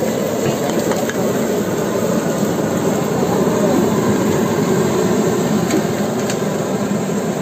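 Busy street ambience: a steady low rumble with people's voices mixed in.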